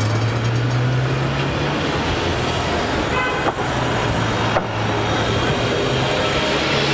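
City bus engine running as the bus pulls past close by, a deep drone over general street traffic. A short high-pitched toot sounds a little after three seconds in.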